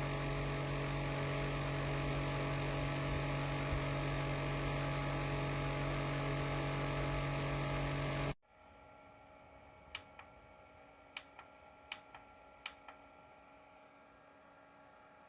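Small fan motor of an Ontel Arctic Air Pure Chill evaporative cooler running with a steady electric hum. It cuts off abruptly after about eight seconds, leaving quiet room tone with about six light clicks.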